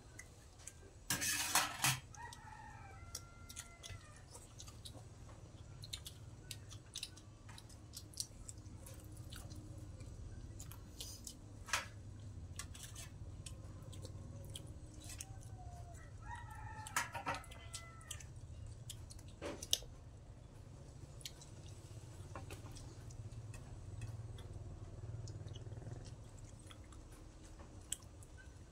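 Chickens calling in the background, a rooster crowing with hens clucking, in two spells, about two seconds in and again past the middle. A short loud noise comes just before the first calls. Small clicks of eating from a metal tray and a steady low hum run underneath.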